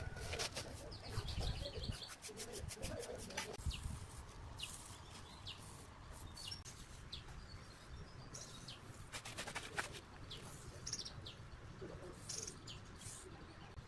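Small birds chirping, with a couple of rapid trills, over faint outdoor background noise. Soft brushing on fresh cement render is heard in the first few seconds.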